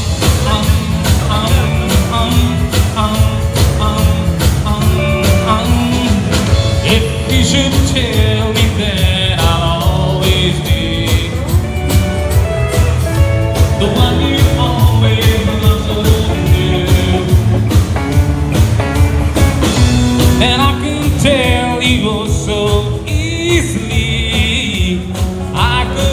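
Live rock-and-roll/country band playing, kicking in right at the start: lead electric guitar lines over bass guitar, acoustic rhythm guitar and a drum kit, loud through the PA.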